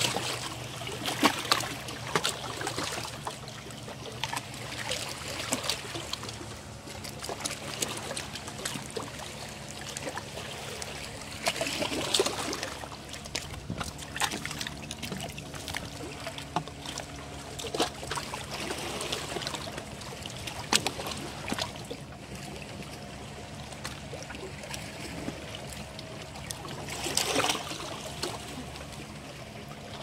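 Small sea waves lapping and sloshing among the boulders of a rock breakwater, swelling into louder splashy surges every several seconds, over a faint steady low hum.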